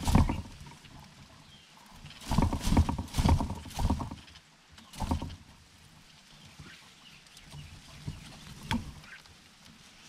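Close rustling and knocking in dry leaves as a greater coucal moves its head and body at a small bird's nest while feeding on a nestling: a burst at the start, a cluster of bursts from about two to four seconds in, another near five seconds, and a sharp knock near the end.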